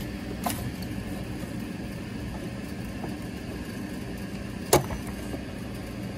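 Clicks of the original halogen H7 headlight bulb being worked loose inside a Mercedes W211 headlight housing by hand: a faint click about half a second in and a sharp, louder click near the end, over a steady low hum.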